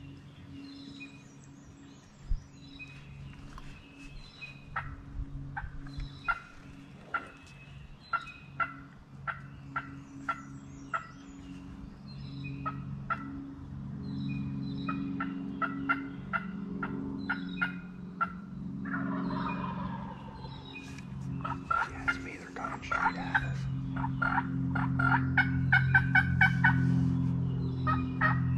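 Wild turkey gobbler gobbling repeatedly. Scattered short calls come first, then from about two-thirds of the way in the rapid rattling gobbles come closer together and louder, over a steady low hum.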